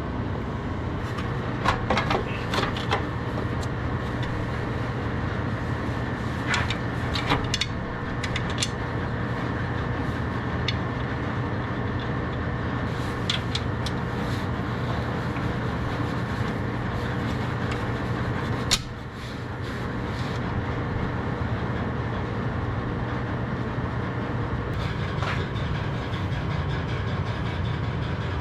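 John Deere 170 skid steer running steadily, with scattered metallic clanks and knocks from the machine working, the first clusters about two seconds in and about seven seconds in and a single sharp one a little past halfway.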